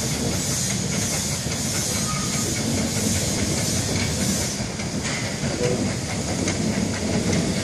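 Steam locomotive hauling carriages as it approaches: a steady hiss of steam that stops about halfway through, over a low rumble and clatter of the train on the track.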